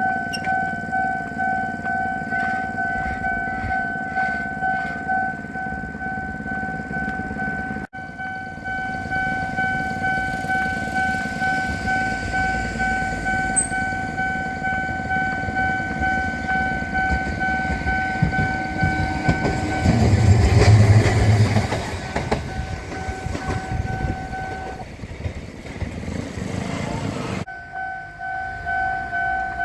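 Japanese level-crossing warning bell ringing a steady, pulsing two-note alarm while a train passes over the crossing. The train's rumble builds to its loudest about two-thirds of the way through and then fades. The bell stops shortly after, then is heard again near the end.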